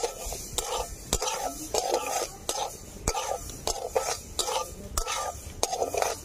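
Metal spatula stirring and scraping dry moong dal around a dry metal kadai: the grains rattle and rustle against the pan in repeated strokes, about two a second, with a few sharp clicks of the spatula on the pan. The dal is being dry-roasted.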